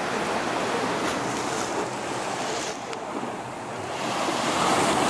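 Sea surf washing up over the concrete steps of a seawall, a continuous rushing of water that swells louder near the end as a wave comes in.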